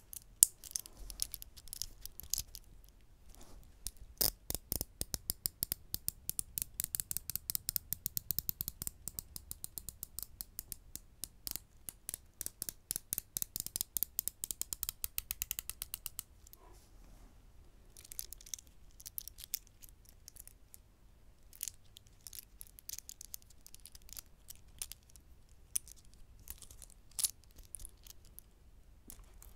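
Close-miked handling of a stainless-steel dive watch: a fast, fairly even run of small sharp metallic clicks from about four seconds in to about sixteen, then scattered lighter clicks and taps.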